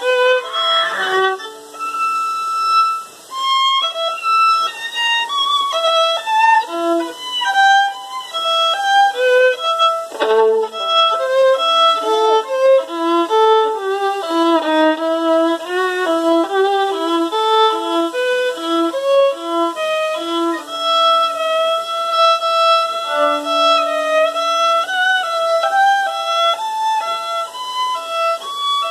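Solo acoustic violin, bowed, playing a melody of short separate notes with a few longer held ones, including a low held note a little after two-thirds of the way through.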